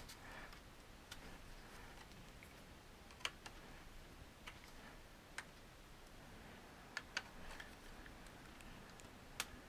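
A few faint, scattered clicks and ticks: a screwdriver prying at the seam of a Rodecaster Pro II's case, the housing clicking as it starts to come apart.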